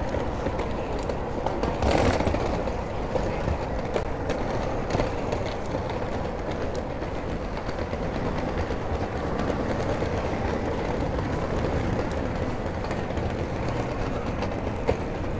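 Steady city street noise: a continuous low traffic rumble with a brief louder swell about two seconds in.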